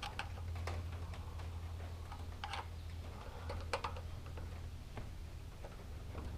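Scattered light metallic clicks and scrapes of a hand wrench on the carburetor mounting bolts as they are tightened, over a steady low hum.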